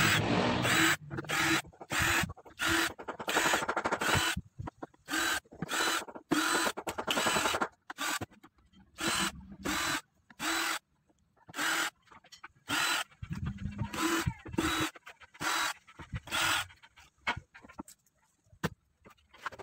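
Cordless drill-driver whirring in many short bursts, one after another, as it backs out the screws of an LED TV's plastic back casing.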